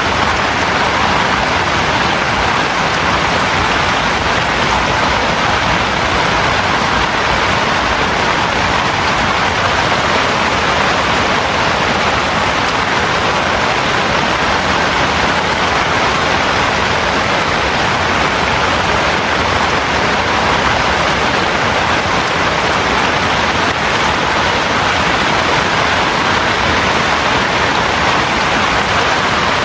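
Heavy rain pouring steadily: a loud, even rush with no breaks.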